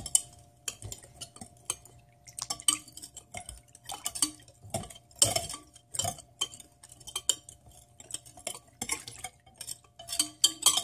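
A spoon stirring and scraping around a bowl, clinking irregularly against its side, mixing crab paste into water until it dissolves.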